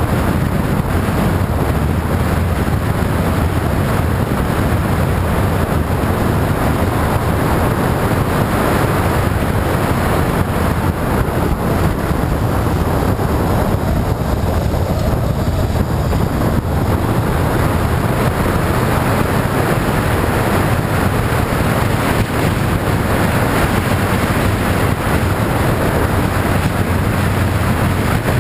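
Motorcycle running at a steady cruise, its engine under heavy wind noise on the microphone.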